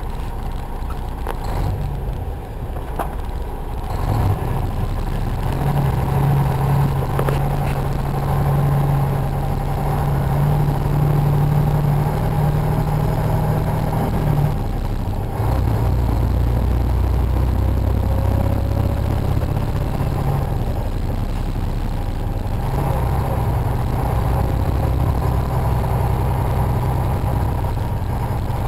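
Semi truck's engine running steadily at highway speed with road noise inside the cab, picked up by a built-in mic. The engine's drone drops to a lower pitch about halfway through.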